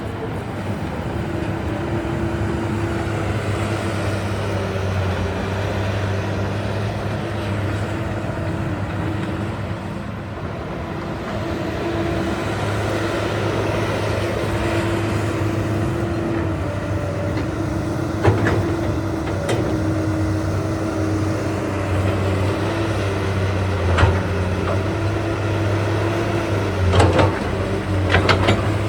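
Komatsu PC220LCi-12 excavator running steadily with a low engine hum. A few sharp clanks come in the second half, with a cluster near the end.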